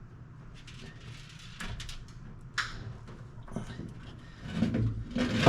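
Bulkhead wiring connector of a 1972 Chevy K20 being pushed and worked into place by hand, making scattered clicks and scrapes. There is a sharp click about two and a half seconds in, and louder handling near the end, while the connector is not yet far enough in to clip.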